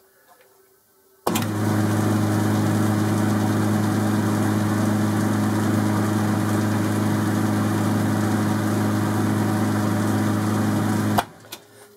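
Boxford lathe's electric drive motor switched on about a second in, running steadily with its belts and multi-step pulleys turning on freshly replaced spindle bearings, under a steady low hum. It cuts off suddenly near the end.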